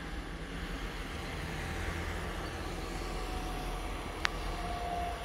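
Distant train approaching on the rails: a low, steady rumble. A single sharp click sounds about four seconds in.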